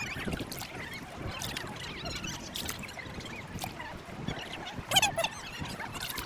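Wet tidal mud squelching and sucking, with small irregular clicks and splashes of water, as hands dig for angelwing clams; a louder squelch about five seconds in.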